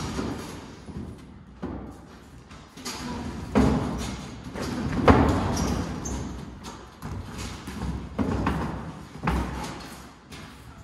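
Irregular heavy thuds of boxing sparring: gloved punches landing and feet stamping on the padded ring canvas, about half a dozen over a few seconds, the loudest about five seconds in.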